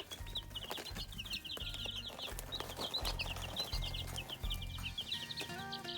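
A brood of baby chicks peeping: many short, high-pitched chirps, rapid and continuous.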